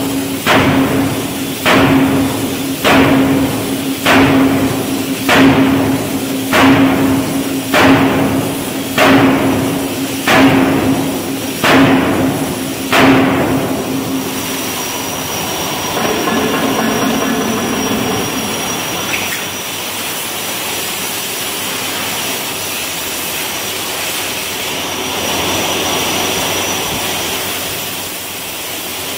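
Giant steam forging hammer striking a red-hot steel workpiece, about a dozen heavy blows at roughly one a second with a steady low hum beneath. The blows stop about 13 seconds in, leaving a steady rushing machinery noise with a thin high whine.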